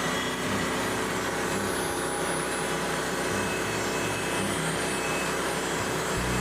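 Small engine of a Frontier OS27 portable bandsaw sawmill running steadily during milling, with a deeper, stronger low hum coming in just before the end.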